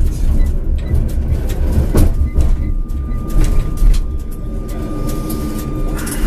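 Tram pulling away from a stop, heard from the driver's cab: a low rumble of the running gear on the rails with repeated clicks and knocks, and a steady high tone from about two seconds in until near the end.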